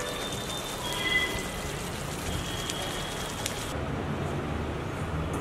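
Chicken curry sizzling and crackling in a metal kadai on the stove, cutting off abruptly about three and a half seconds in. A low steady hum follows.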